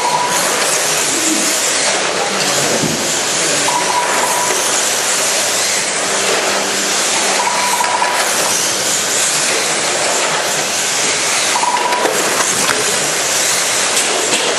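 Radio-controlled model cars racing on an indoor carpet track give a steady high hiss and whine of motors and tyres. Short high beeps sound about every four seconds.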